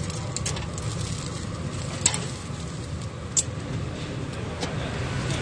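Beef intestines grilling in a wire grill basket over a coal-briquette fire, with a few sharp clicks of steel tongs handling the pieces, the loudest about two seconds and three and a half seconds in, over a steady low hum.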